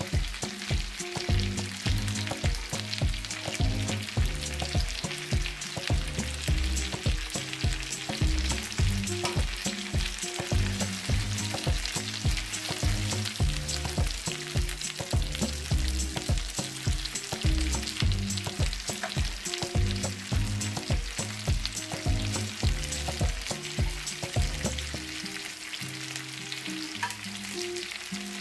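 Chicken drumsticks in a yogurt marinade frying in shallow oil in a nonstick pan: a steady sizzle, with tongs turning the pieces. Low notes in a steady beat run underneath and stop a few seconds before the end.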